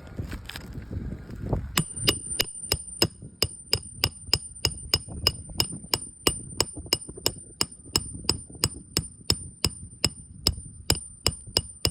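Hammer driving roofing nails into a replacement shingle: quick, even blows, about three a second, each with a high metallic ring, starting about two seconds in. Wind noise on the microphone before the hammering starts.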